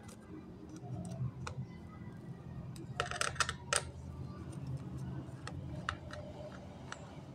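Scattered light clicks and taps of small laptop parts being handled during disassembly, with a quick run of sharper clicks about three seconds in.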